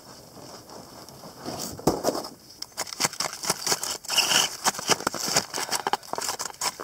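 A loaded toboggan scraping and crunching on packed snow as it is slid out of the vehicle and handled: a dense run of crackling scrapes that starts about a second and a half in and grows louder.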